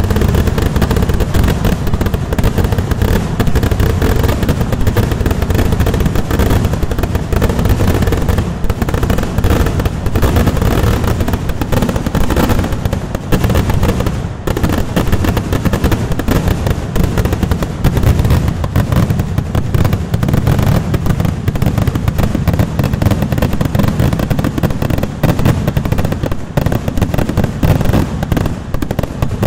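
Kerala vedikettu fireworks going off in a dense, unbroken barrage of loud firecracker bangs, thinning briefly about halfway through.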